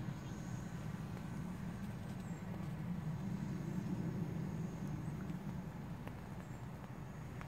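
DJI Mavic Pro quadcopter's propellers humming steadily in flight.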